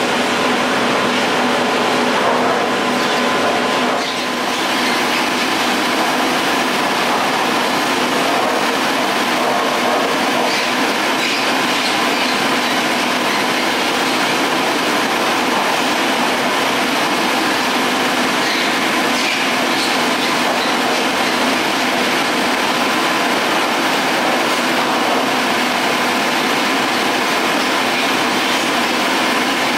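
Garaventa detachable chairlift machinery running steadily: a continuous rolling, rattling noise with a steady hum under it, dipping briefly about four seconds in.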